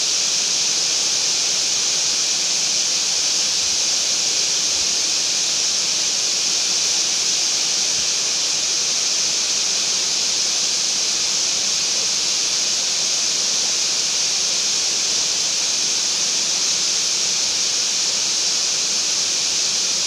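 Waterfall water rushing: a steady, even hiss weighted toward the high end.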